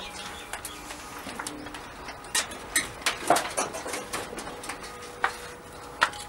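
A dove cooing in the background, with scattered sharp knocks, scuffs and footsteps on dirt as a person gets up and walks off. The loudest knocks come about three seconds in and again near the end.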